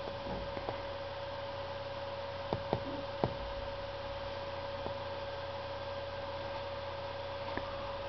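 Steady electrical hum with a clear high tone held throughout, with several faint taps of a fingertip on a tablet's touchscreen as keys are pressed on its on-screen keyboard.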